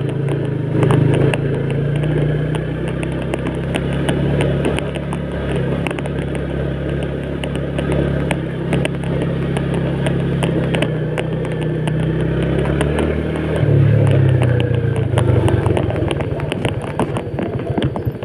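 Small motorcycle engine running while riding a rough, rocky dirt road, with frequent clattering knocks as the bike jolts over stones and potholes. The engine note steps up and gets louder about two-thirds of the way through.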